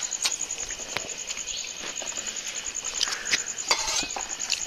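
An insect chirping in a fast, even, high-pitched pulse that never stops, with scattered sharp clicks and taps of hands mixing rice in steel plates, most of them about three to four seconds in.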